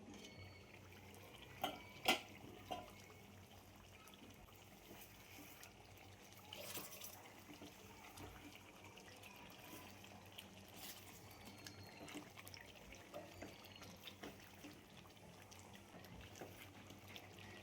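Faint water sounds, trickling and dripping, with a few sharp clicks or knocks about two seconds in.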